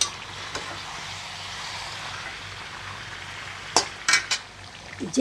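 Marinated chicken pieces sizzling steadily in hot oil in a kadhai on high flame as they begin to release their juices, with a few sharp clicks of a spatula against the pan about four seconds in.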